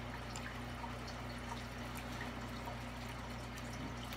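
Room tone: a steady low hum with a thin hiss and a few faint, scattered ticks.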